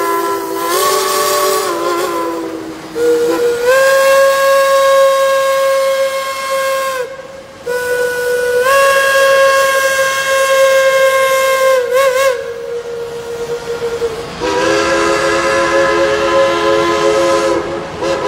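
Geared steam locomotives blowing their steam whistles in turn over a steady steam hiss. A chime whistle sounds a chord for the first two seconds or so. A single-note whistle then gives two long blasts, broken briefly about seven seconds in, with a short warble near twelve seconds. The chord whistle sounds again from about fourteen seconds until near the end.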